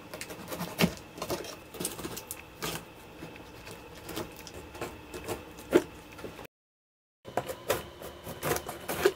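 Packing tape on a cardboard box being slit open with a small blade: irregular crackling, scratching and sharp clicks of tape and cardboard, with the odd tap of hands on the box. The sound drops out completely for under a second about two-thirds of the way through.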